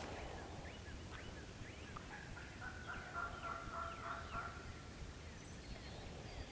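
A wild turkey gobbler gobbling once, faint and distant: a rapid rattling call from about two seconds in until about four and a half seconds in.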